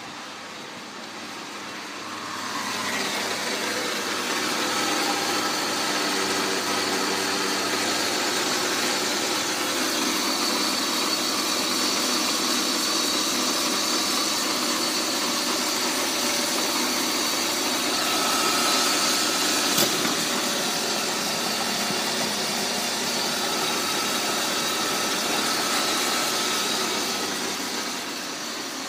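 BMW E39 2.8-litre straight-six engine (code 286S1) idling steadily, growing louder about three seconds in. A single sharp click near twenty seconds.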